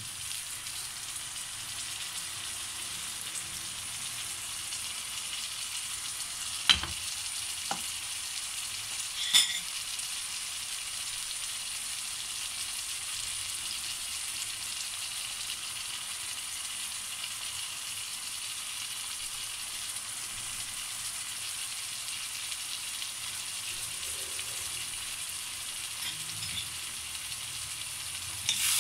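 Bitter gourd, onion and tomato masala sizzling steadily in a non-stick wok as it fries down. Two sharp clicks come about seven seconds in and again near ten seconds.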